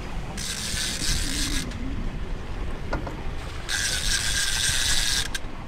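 Fishing reel being wound in two spells, one a little over a second and one about a second and a half, a hissing mechanical whirr that starts and stops sharply, over a steady low rumble of wind and water.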